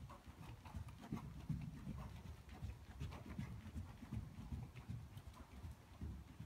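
Hoofbeats of a ridden horse on the sand footing of an indoor arena: dull, muffled thuds in a steady rhythm.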